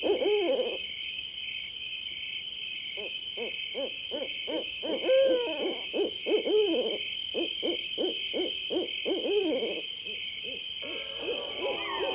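Owl hooting at night: a short call, then after a pause a long run of quick rising-and-falling hoots. A steady high pulsing drone runs underneath, and near the end a different, steadier sound comes in.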